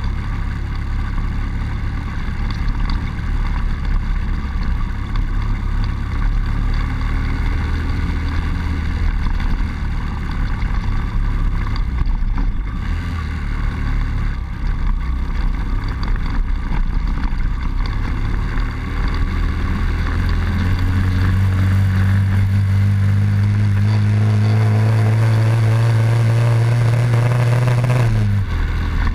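Honda Dax 70cc's small single-cylinder four-stroke engine running steadily while riding. About two-thirds of the way in, its note climbs slowly as the bike accelerates, then drops suddenly near the end.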